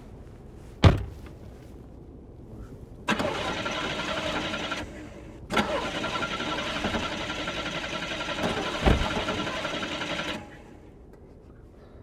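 Car engine starting and running, twice breaking off and starting again abruptly. A sharp thump comes about a second in, and another partway through the second run.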